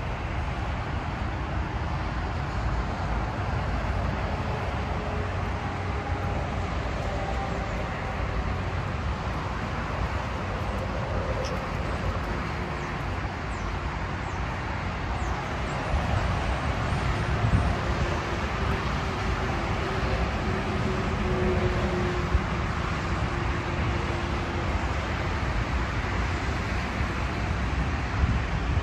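Steady motorway traffic, cars passing continuously, with wind rumbling on the microphone.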